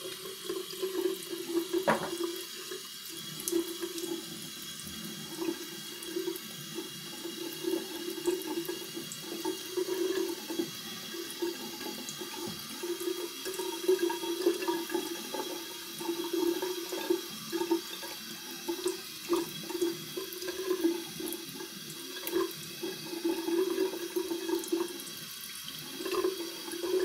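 Bathroom tap running steadily into a sink, turned on suddenly, with irregular splashing as water is scooped onto the face to rinse it after a wet shave.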